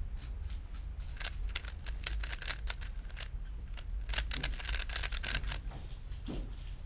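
Plastic 3x3 speed cube being turned fast by hand during a blindfolded solve, its layers clicking in two quick bursts of turns, the second denser, with short pauses between. A steady low hum runs underneath.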